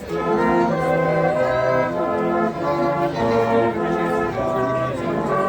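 Brass music: several brass instruments play a tune in harmony over a moving bass line, with notes changing every fraction of a second.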